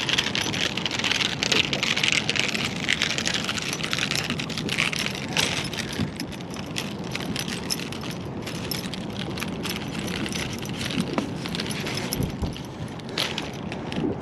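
Light clicking and rattling of a drifting rig's weights and spreader being handled, over steady wind and boat noise.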